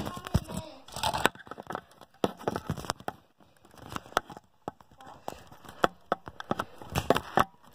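Handling noise from a phone being picked up and moved about: fingers rubbing and knocking on the case and microphone, giving irregular crackles and clicks.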